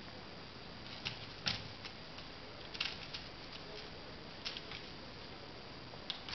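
A kitten at play: scattered light taps and scrabbling of its paws and claws as it bats at a spring-mounted toy mouse, about eight uneven taps with the sharpest about a second and a half in, over a steady faint hiss.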